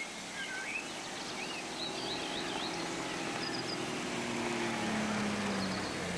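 A 4x4's engine running on a forest track, its hum growing louder and falling in pitch about five seconds in. Birds chirp above it.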